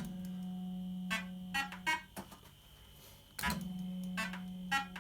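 1980s JPM Nudge Double Up fruit machine playing: a steady low electronic tone sounds while the reels spin, broken by sharp, briefly ringing clunks as the reels stop one after another. A second spin starts about three and a half seconds in.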